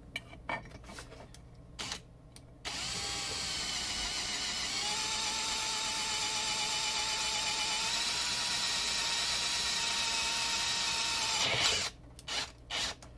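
Cordless drill turning a combined M5 drill and M6 tap bit into the cast aluminium housing of a Tesla large drive unit. A few light clicks come first; the steady motor whine starts about three seconds in and cuts off shortly before the end.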